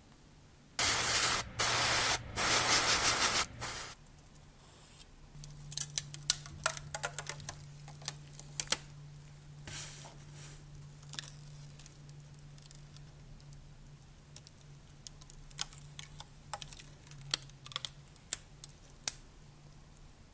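Three short hisses from a spray can in quick succession. Then small clicks and crackles of handling, and a thin plastic film being peeled off a small model part, over a low steady hum.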